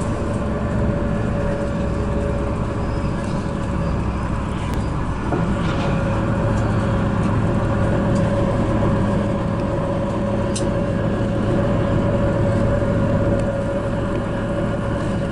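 Bus running along a road, heard from inside the cabin: a steady engine drone and road noise with a constant mid-pitched hum.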